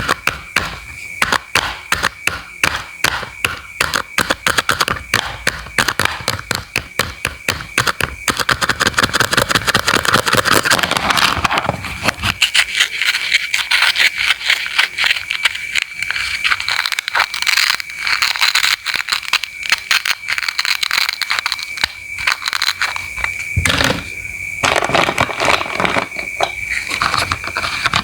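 A knife cutting fruit and vegetables on a cutting board in quick, repeated strokes, a fast run of sharp knocks and crisp slicing sounds, densest about a third of the way in. A thin, steady high-pitched tone runs underneath.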